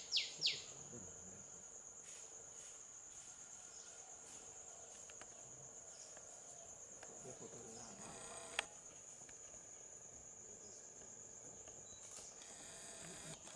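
Steady high-pitched drone of insects. Near the start, the last of a run of falling whistled bird notes ends about half a second in, and there is a single sharp click about eight and a half seconds in.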